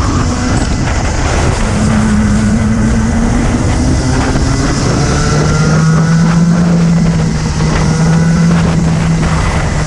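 Racing kart engine running at speed, heard onboard with wind buffeting the microphone. The engine note drops in pitch about halfway through, then holds steady.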